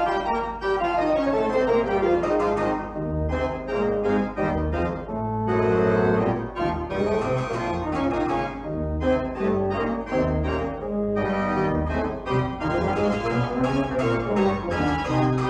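Instrumental background music: held organ chords moving over a recurring bass line.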